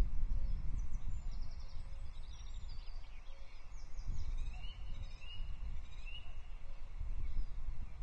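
Small songbirds singing in short high phrases and trills, with a few rising whistled notes in the second half, over a steady low rumble of wind on the microphone.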